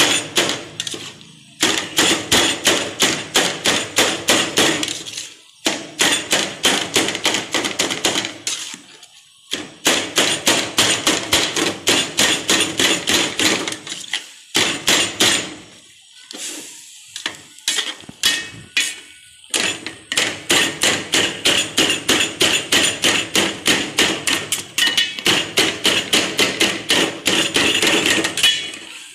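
Knife blade chopping cooked chicken in a stainless steel bowl, striking the metal in fast, regular runs of several clinking taps a second, with a few short breaks.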